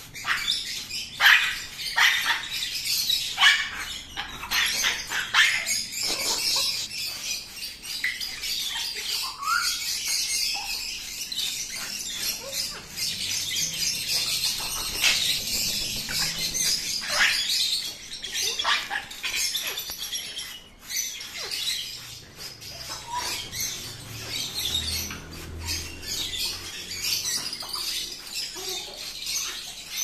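African grey parrots fighting: wings flapping hard and feet scrabbling on wire cage mesh, with a few short squawks and chirps.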